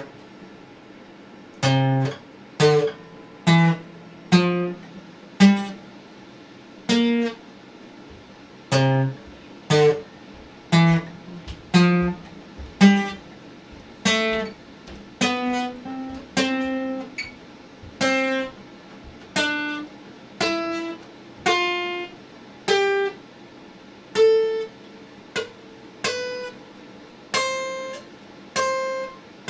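Acoustic guitar played slowly: single notes and small chords plucked one at a time, each ringing out and fading before the next, about one a second.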